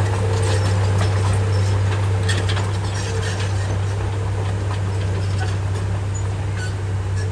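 Komatsu bulldozer's diesel engine running with a steady low drone while pushing soil, with scattered light clicks over it.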